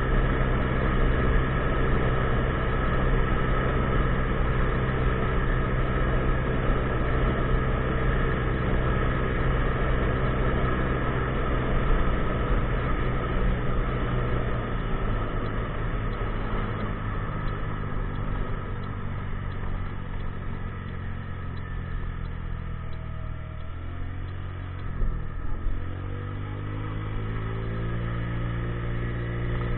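A 50cc scooter engine running under way over wind noise. The engine note eases off about halfway through, dips briefly, then rises again as the scooter picks up speed near the end.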